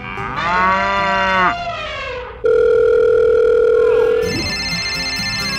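A short animal-call sound effect, then about two and a half seconds in a steady telephone dial tone that gives way near the end to a pulsing phone ringtone for an incoming call, over light background music.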